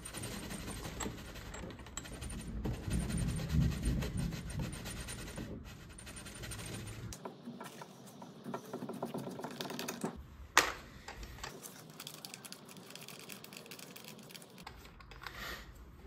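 A brass quick-connect refrigerant line fitting being threaded by hand onto an air handler's service valve, with fine, rapid metallic clicking and rubbing. It quietens after about seven seconds, with one sharp click a little after ten seconds.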